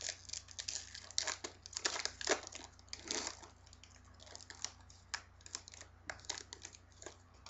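Trading card pack wrapper crinkling and tearing as the pack is opened by hand: a dense run of crackles over the first few seconds, then sparser crinkles.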